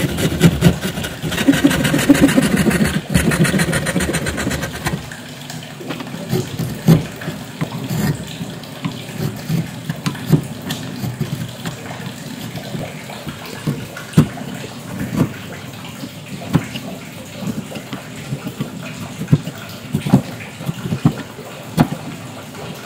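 Hand saw cutting into wood with fast back-and-forth strokes for about the first five seconds. Then a chisel pares the sawn angled face, with scattered sharp clicks and scrapes.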